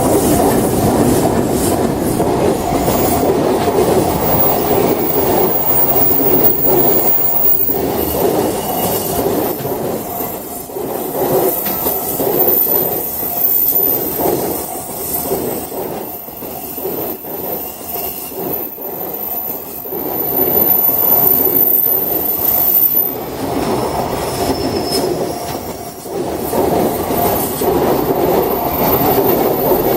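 Container freight train wagons behind an EH500 electric locomotive rolling past at close range: a continuous rumble and clatter of steel wheels on the rails that eases and swells again as the wagons go by.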